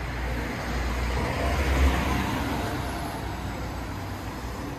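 City street traffic: a car drives past close by, its noise swelling to a peak about two seconds in and then fading.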